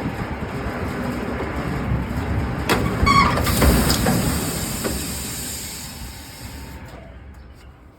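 Industrial machine running with a steady mechanical noise, a few clanks and a brief high metallic squeal about three seconds in, then fading down near the end.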